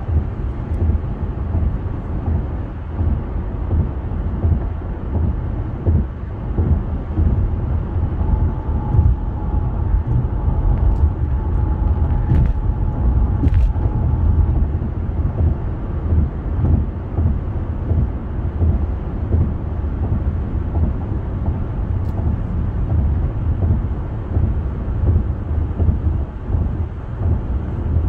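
Steady road noise inside a car cruising at highway speed: a continuous low rumble of tyres and engine. A faint steady whine comes in for several seconds in the middle.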